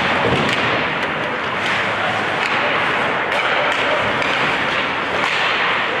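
Ice hockey game in play: a steady wash of rink noise from skates on the ice, with sharp clacks of sticks and puck several times.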